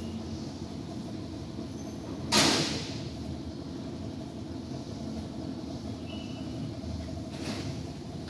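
A steady low mechanical rumble with a faint hum. A short, loud rustling whoosh comes about two seconds in, and a weaker one near the end.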